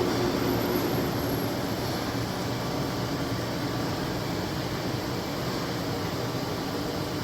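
Steady hum and whir of running machine-shop machinery, a CNC lathe's bar-feed cycle, with a faint steady drone underneath.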